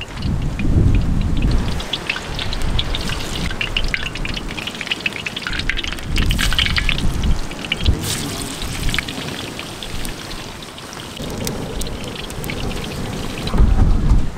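Balls of banana and gram-flour batter deep-frying in a wok of hot oil: a steady sizzle thick with small crackles and pops. A few low thumps come in the first second or two and again near the end.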